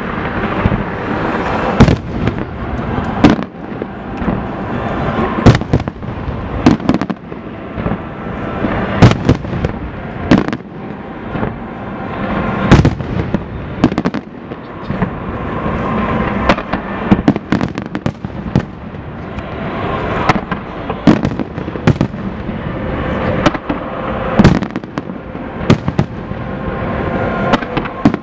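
Fireworks display going off without pause: sharp bangs of exploding shells come every second or so over a continuous crackling din.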